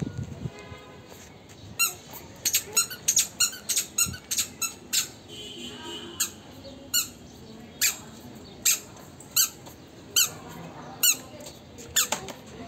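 A toddler's squeaky shoes squeaking with each step: short, high chirping squeaks, quick and close together for a few seconds, then about one a second.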